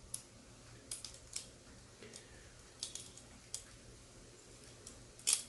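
A small plastic phone clamp is handled and adjusted. It gives off faint scattered clicks and clacks, about six in all, with the loudest clack near the end.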